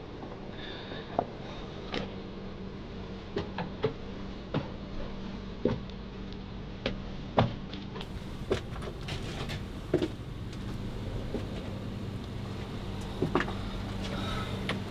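Scattered, irregular knocks and scuffs of footsteps and handling as someone moves over broken plaster and rubble, over a steady low hum.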